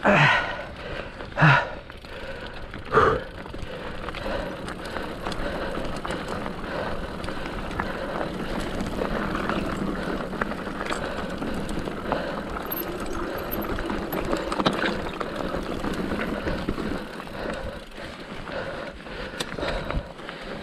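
Mountain bike ridden over a muddy dirt trail: steady tyre and drivetrain noise, with three short loud knocks in the first three seconds.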